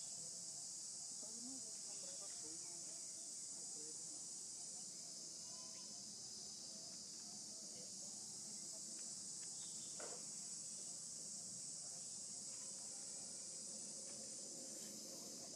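Steady, high-pitched chorus of insects, an even shrill drone.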